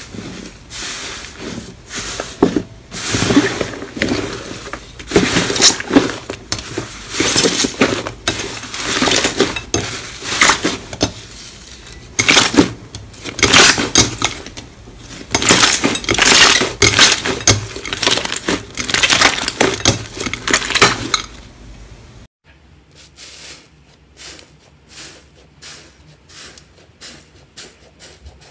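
Hands squeezing and pressing slime, giving irregular bursts of squishing, crackling and popping. About three-quarters of the way through it drops suddenly to softer, smaller crackles.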